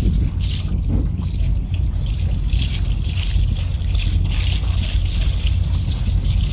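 Water rushing and splashing along the hull of a motor ship underway, a hiss that swells and fades in waves over a steady low rumble.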